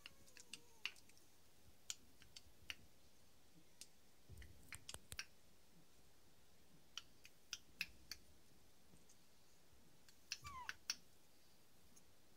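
Faint, scattered clicks and smacks from three-week-old Staffordshire Bull Terrier puppies mouthing and chewing as they teethe, with a brief falling squeak from a puppy about ten seconds in.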